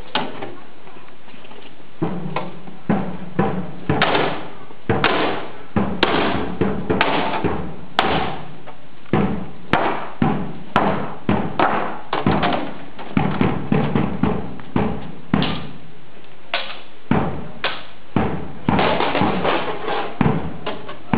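Swords striking shields and helmets in a staged medieval combat: an irregular series of sharp knocks and clangs, about one or two a second.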